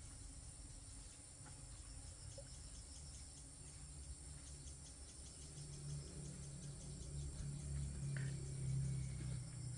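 Insects chirping steadily in a high, pulsing drone, with a low rumble underneath that grows louder in the second half.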